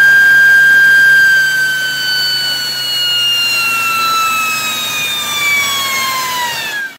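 Air-driven turbocharger turbine whining steadily at high speed, then winding down, its pitch falling smoothly from about a second and a half in; the sound cuts off abruptly near the end.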